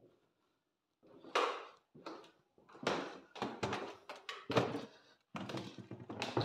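Footsteps on bare wooden floorboards in a small room: an uneven run of knocks and thuds starting about a second in.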